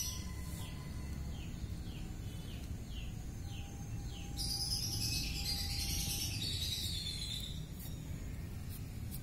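Birds calling in the background: a short falling chirp repeated about twice a second, then a louder run of birdsong starting about four seconds in and lasting some three seconds, over a low steady rumble.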